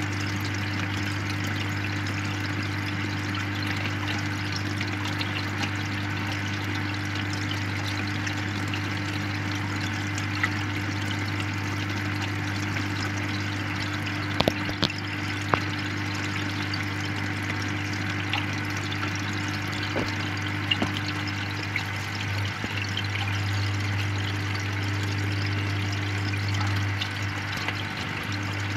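Aquarium air pump humming steadily while the airstone bubbles in the tank, with a few sharp clicks around the middle.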